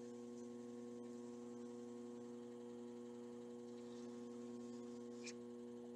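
Steady low electrical hum, a few even tones held without change, with one faint click near the end.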